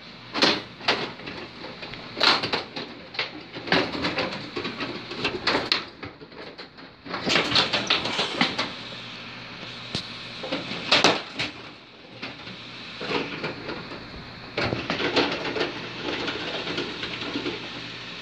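Carrom Super Stick dome hockey table in play: sharp plastic clacks and rattles in irregular flurries as the control rods are pushed and spun and the puck strikes the players and boards.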